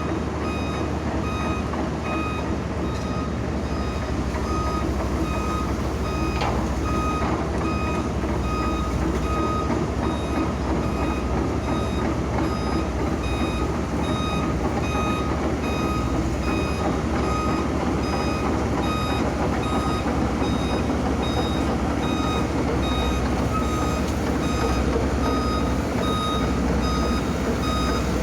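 A backup warning alarm beeping on and off at a steady pace over the continuous rumble of heavy machinery engines.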